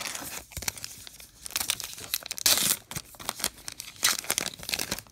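A 2019 Topps Heritage Minor League card pack's paper wrapper being crinkled and torn open by hand, with a run of crackling rips that is loudest about two and a half seconds in.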